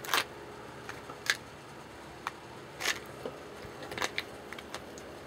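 Several short, sharp clicks and rustles close to the microphone, the handling noise of a handheld camera, over a faint steady drone.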